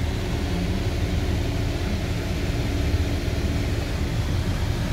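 The 2007 Chevrolet Silverado 1500's 5.3-litre V8 idling steadily: a continuous low hum with a hiss on top.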